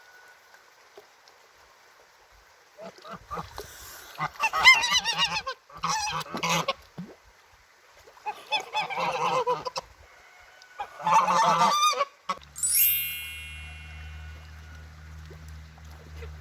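Domestic goose honking defensively in four loud bursts of harsh, wavering calls, from about three seconds in to about twelve. Near the end a sudden bright ringing sound falls in pitch, then gives way to a steady low hum.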